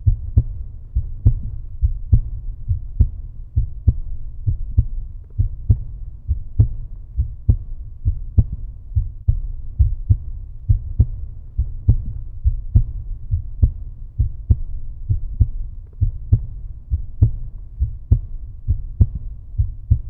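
Heartbeat sound: low, steady thumps in an even rhythm, a little faster than one beat a second.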